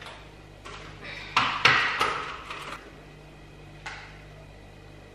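Several knocks and clatters of kitchen items being handled at the stove. The loudest is a quick run of knocks about a second and a half in, with one lighter knock near four seconds.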